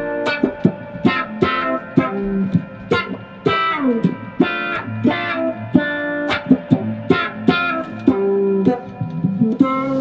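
Instrumental music led by a plucked electric guitar playing quick runs of notes, several a second, over a bass line.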